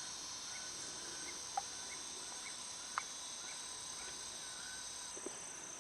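Faint steady high-pitched insect chorus, with a short chirp repeating about twice a second and a couple of small clicks.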